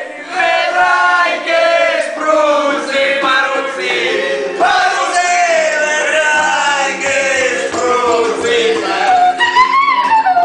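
Men singing a song together, loud and continuous, to a small ukulele strummed by one of them.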